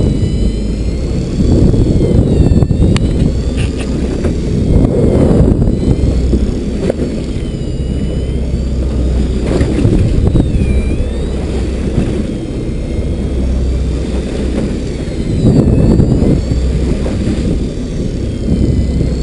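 Boat engine rumbling steadily under wind buffeting the microphone and waves splashing along the hull, swelling louder every few seconds. A faint whine that wavers up and down in pitch runs above it, typical of an electric reel winding in line under load.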